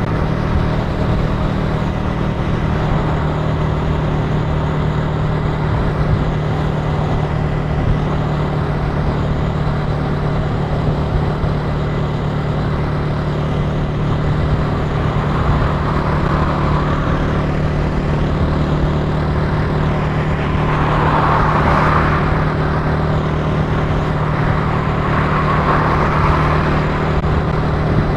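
Italika TC300 motorcycle engine running steadily while riding, with road and wind noise. In the second half there are three brief swells of rushing noise.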